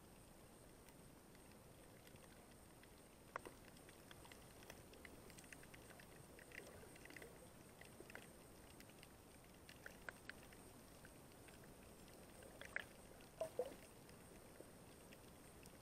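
Near silence: muffled underwater ambience heard through a waterproof camera housing, with faint scattered clicks and ticks and a few louder ones, a cluster of them near the end.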